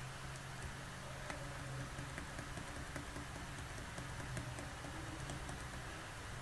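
Faint, scattered clicks of computer keyboard keys being pressed at irregular intervals, over a steady low hum.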